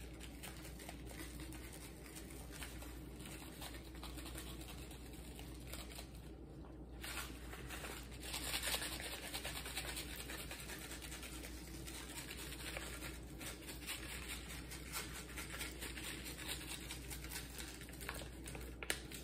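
Dry onion soup mix shaken from its paper packet onto raw chicken drumsticks: faint pattering of the falling flakes with rustling of the packet, a little louder about eight to ten seconds in.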